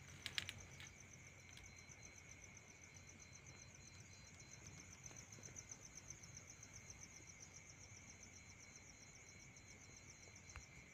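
Crickets and other night insects chirring faintly and steadily: a fast, even pulsing trill high up over a steady lower whine. A few small clicks sound about half a second in.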